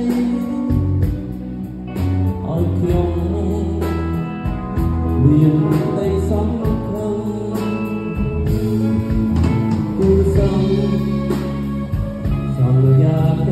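Live band playing: a man sings into a microphone over electric guitar and deep bass notes, with a steady beat.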